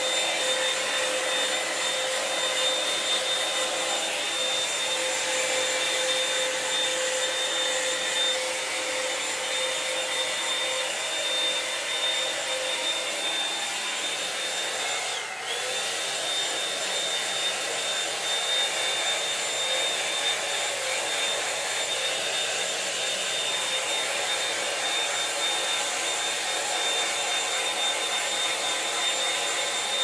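Revlon One-Step hair dryer and volumizer brush blowing steadily, a loud rush of air with a high motor whine. About halfway through, the whine's pitch and the loudness dip briefly, then recover.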